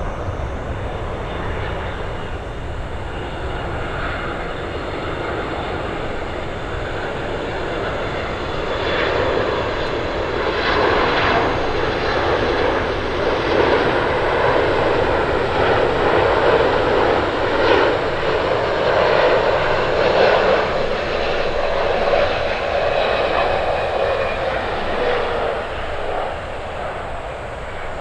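Boeing 777-200ER airliner on landing approach, its twin turbofan engines making a steady jet rumble that swells as the plane passes close by, then eases off, with a falling pitch near the end as it moves away.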